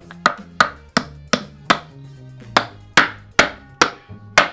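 Wooden mallet pounding a board down onto a wooden post: about ten sharp knocks, roughly three a second, with a short break around two seconds in. Background music plays underneath.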